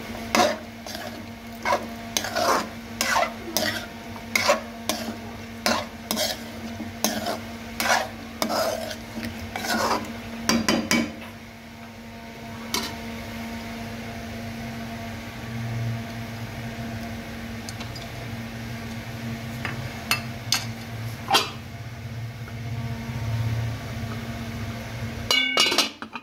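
Metal spoon stirring chicken curry in a metal pot, scraping and clinking against its sides for about the first eleven seconds. Then a quieter stretch with a steady low hum and a few single knocks, and near the end a metal lid clatters onto the pot.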